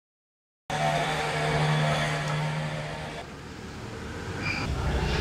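Street traffic: a motor vehicle running nearby with a steady low hum, starting abruptly after a short silence, fading about three seconds in, then a deeper rumble of traffic building near the end.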